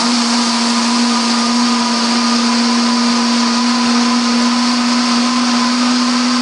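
Waring Xtreme 3.5-horsepower commercial bar blender running on high, blending a full jar of ice with strawberry daiquiri mix in its Raptor jar on the 10-second timer. The motor gives a steady, even whine.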